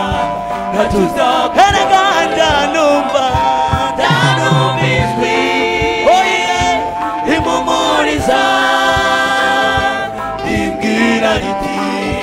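Gospel song: voices singing a melody in long, wavering notes with steady accompaniment underneath.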